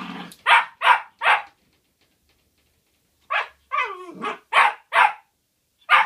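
Irish Terrier puppy, about ten weeks old, barking in play at its own reflection in a mirror: three quick high yaps, a pause of about two seconds, then a yap, a longer falling growl and two more yaps, with another starting at the very end.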